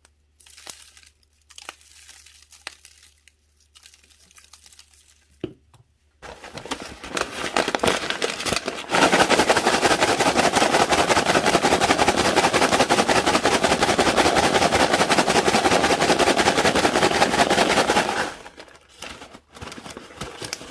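A bag of freshly microwaved pork rinds being shaken to coat them with seasoning: the crisp rinds rattle against each other and the bag in a dense, fast crackle. The crackle builds about six seconds in after some quieter rustling and handling, stays loud for about nine seconds, and tails off near the end.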